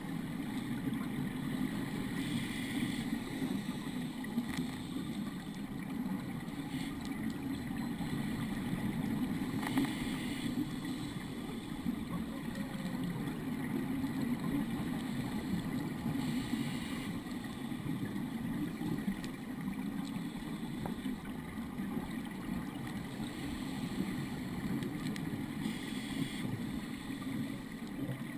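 Steady, muffled low rushing of underwater noise picked up through a GoPro Hero 2's sealed housing. Every seven seconds or so a brief faint hiss rises over it, from a scuba diver's exhaled bubbles.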